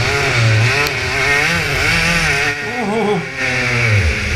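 TKM 125cc air-cooled, direct-drive two-stroke kart engine, heard from the kart itself, its revs rising and falling as the throttle is worked through wet corners, the pitch dropping near the end.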